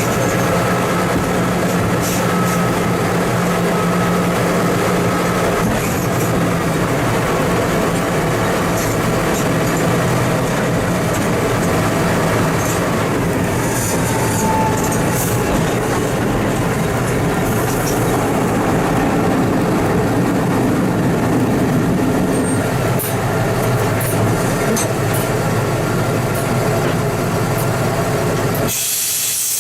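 Diesel engine of a TMC200 rail snowplow motor car running steadily as it travels along the track, with rumbling rail and running noise. About a second before the end the engine and rumble drop away suddenly and give way to a steady hiss.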